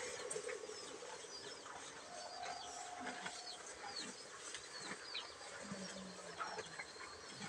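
Small birds chirping over and over with quick, high, falling notes, over soft rustling and crunching from cattle pulling and chewing cut grass at a trough.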